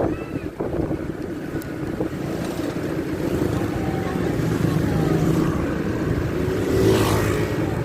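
Large bus engine running with a steady low rumble that grows slightly louder, a short rush of noise near the end.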